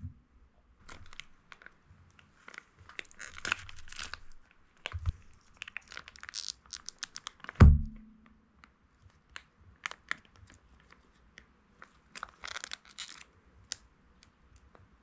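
Plastic food pouch crinkling and being torn open, in irregular crackly bursts. About halfway through there is a single sharp knock, the loudest sound, with a short ring like a ceramic plate being bumped, and more crinkling near the end as the sauce is squeezed out of the pouch.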